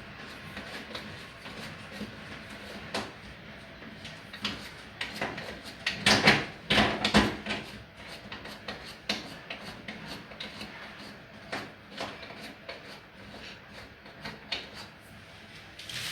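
Clicks and scrapes of a washing machine's inlet hose fitting being unscrewed, with a louder stretch of rattling about six seconds in.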